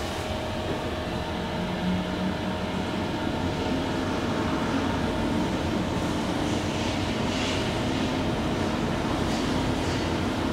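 2012 SMW traction elevator car travelling in its shaft: a steady running rumble, with a thin steady tone that sets in right at the start of the ride.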